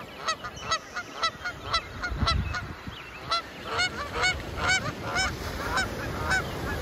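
A flock of geese calling in flight: many short honks from many birds, overlapping and coming several a second.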